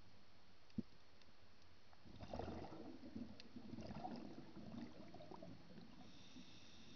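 Underwater: a single knock about a second in, then a few seconds of irregular bubbling gurgle from a diver's exhaled breath, fading out again.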